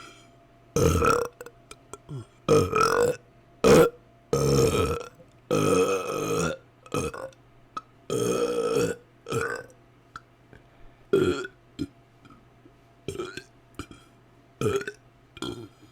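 A person belching repeatedly close to the microphone: about a dozen separate burps with short pauses between. Several long, drawn-out ones come in the middle, and shorter, quicker ones come toward the end.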